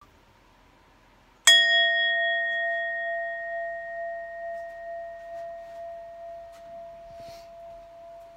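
Singing bowl struck once about a second and a half in, then ringing on in a long, slowly fading tone with a gentle pulsing waver.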